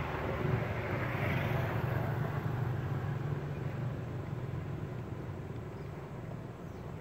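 Engine rumble of a passing motor vehicle, slowly fading away.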